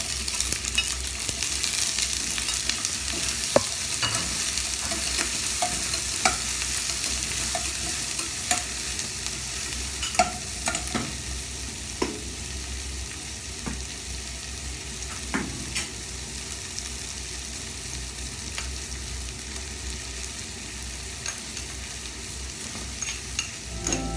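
Onion, ginger, garlic and curry leaves sizzling in hot oil in a stainless steel pot, with a metal spatula scraping and clicking against the pot as they are stirred. The sizzle eases a little over the stretch.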